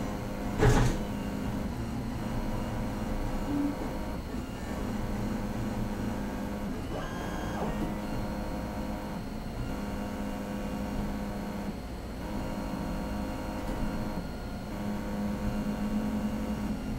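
Stepper motor running under a SparkFun Easy Driver board, stepping its shaft round with a steady, printer-like buzzing whine that shifts a little in places. A sharp click about a second in is the loudest sound.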